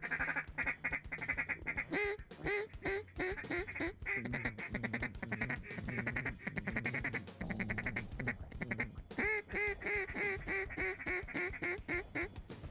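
Mallard duck calls blown by hunters at circling ducks: repeated strings of quacks, with a faster run of short chattering notes in the middle.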